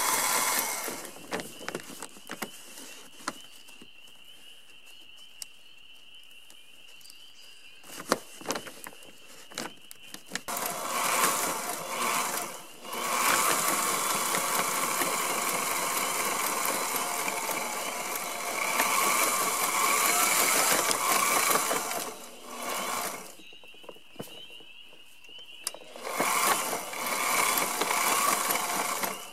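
Sailrite LSZ1 zigzag walking-foot sewing machine running in stitching runs through the sail fabric: a short run about ten seconds in, a long run of about nine seconds in the middle and another run near the end. Clicks and handling knocks come between the runs.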